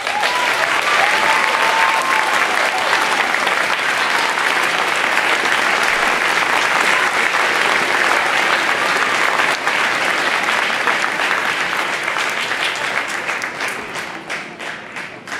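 Audience applauding steadily, with a few cheers in the first seconds, the clapping thinning into scattered separate claps and fading near the end.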